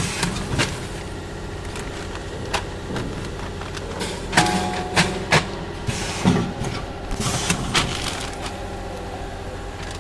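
Filled plastic packaging bags crinkling and rustling as they are handled, with irregular sharp crackles and knocks, the loudest between about four and six seconds in. Underneath, a packing machine runs with a steady low hum.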